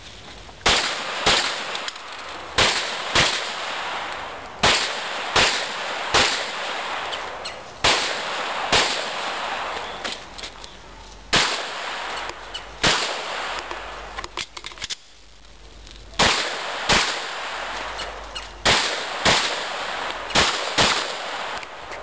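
Handgun shots fired in quick pairs, about twenty in all, each with a short echo. A pause of a second or two near the middle holds only a few small clicks.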